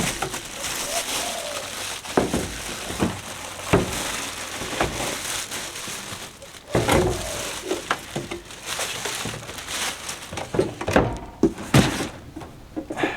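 Packaging being handled while an inverter is unboxed: foam packing and wrapping crinkling and rustling, with a string of knocks and thuds as things are shifted in the box.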